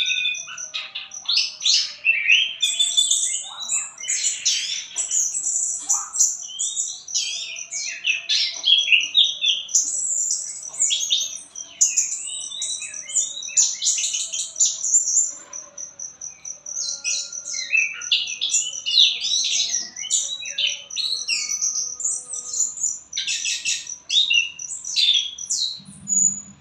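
A songbird singing a long, varied song of quick chirps and whistles, with a rapid high trill running through it almost without pause.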